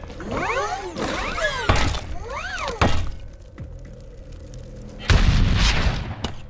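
Action-film sound effects over music: sweeping rising-and-falling whooshes, two hard impacts in the first three seconds, then a loud, deep crash lasting about a second, about five seconds in.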